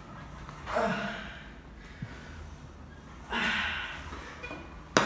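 A man breathing out hard twice while straining at a cable pulley machine, the two breaths about two and a half seconds apart. A sharp clack comes just before the end.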